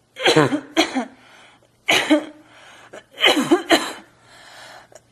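A person forcing out harsh, barking coughs in five loud bursts: two quick ones at the start, one about two seconds in, and two more close together past three seconds. Each drops in pitch, with breathy intakes between them.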